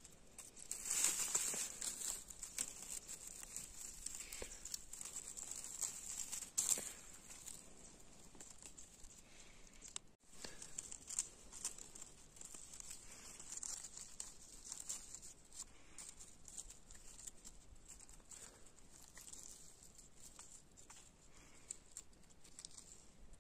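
Dry pine needles, leaves and twigs rustling and crackling as a hand searches the forest floor litter and picks morel mushrooms, with louder bursts of crunching about a second in and again near seven seconds, over a faint steady high hiss.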